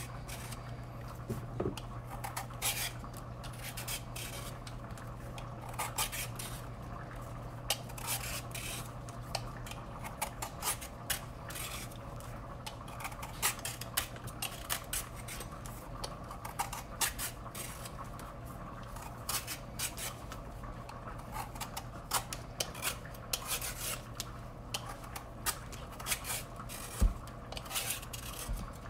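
Butternut squash being peeled by hand: quick, irregular scraping strokes of a blade along its tough skin. A single knock near the end.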